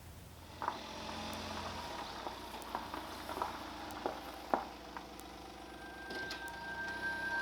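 Campfire crackling: a steady hiss with irregular sharp pops. Music starts to fade in near the end.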